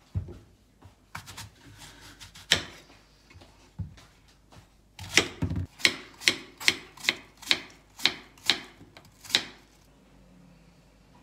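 Kitchen knife cutting an apple on a wooden cutting board: a few scattered knocks and one loud chop as the apple is halved, then a run of about ten even slicing strokes, roughly two and a half a second, knocking on the board, stopping near the end.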